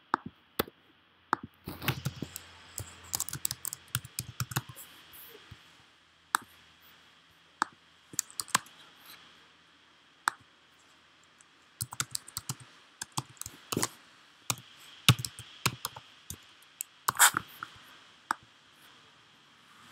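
Typing on a computer keyboard: sharp key clicks in short, irregular runs with pauses between them, as figures are keyed in.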